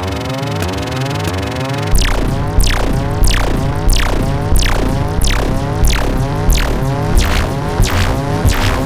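Electronic dance music: a repeating synth pattern of rising glides, joined about two seconds in by a heavy low beat that hits about every two-thirds of a second, each hit carrying a sharp falling zap.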